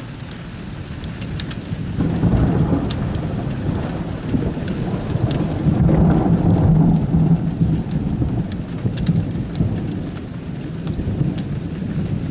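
Rolling thunder over steady rain. A deep rumble swells about two seconds in, is loudest around the middle and eases off near the end, while raindrops tick against nearby surfaces throughout.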